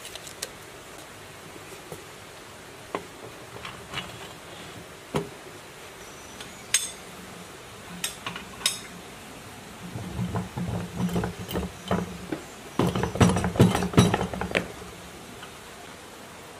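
Metal clinks and knocks of hand tools and parts being worked on a bare single-cylinder diesel engine block during reassembly: scattered single clicks at first, then a run of quick rattling clinks in the second half, loudest a few seconds before the end.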